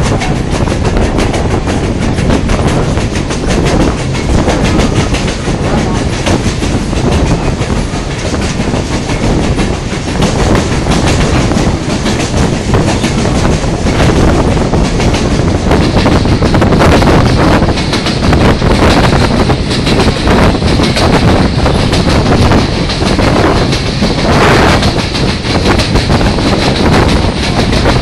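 Moving excursion train heard from its open passenger car: a loud, steady rumble with wheels clattering on the rails.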